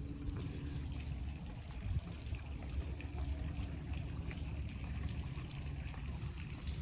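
Garden water fountain running, a steady trickling and splashing of falling water.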